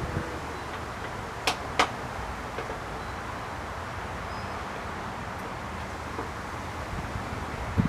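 Two sharp clicks close together about a second and a half in, from small parts and tools being handled during outboard reassembly, over a steady hiss of outdoor background noise.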